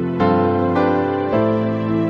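Gentle background music with sustained chords that change about every half second.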